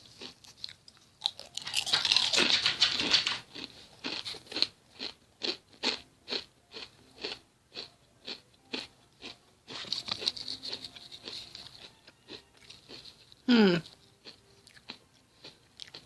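Kettle-cooked potato chip bitten into with a loud crunch, then chewed steadily at two or three chews a second, with more crunching about ten seconds in. About two-thirds of the way through comes one brief loud sound that slides down in pitch.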